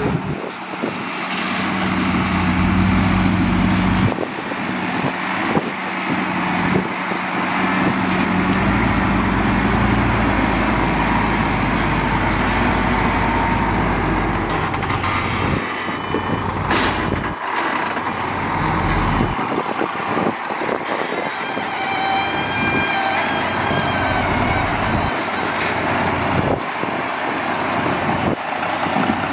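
Heavy diesel construction machinery, dump trucks and a crawler bulldozer, running and working steadily. About two-thirds of the way through comes a short, sharp hiss. Near the end a steady high tone sounds for a few seconds.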